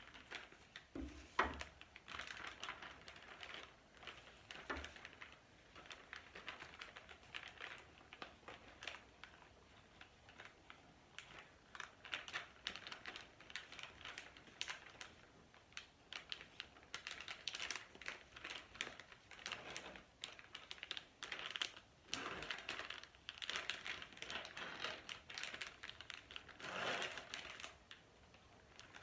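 Plastic gallon zip-top bag crinkling and rustling in quick, irregular crackles as a painted canvas is worked into it by hand.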